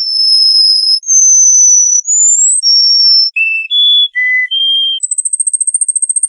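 Bird song of clear whistled notes, each held about a second at a different pitch, with one rising slide, then shorter notes, breaking into a rapid high trill near the end.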